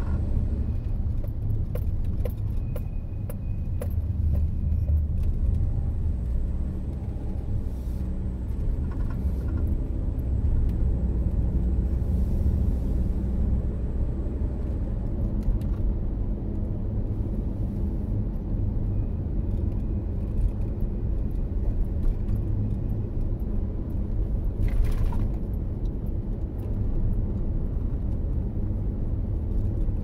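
Car driving at a steady speed, heard from inside the cabin: an even low engine and road rumble.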